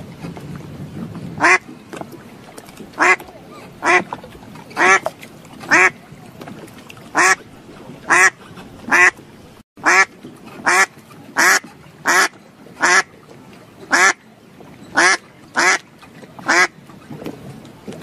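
A duck quacking over and over: about seventeen short single quacks spaced half a second to a second apart, beginning about a second and a half in and stopping shortly before the end.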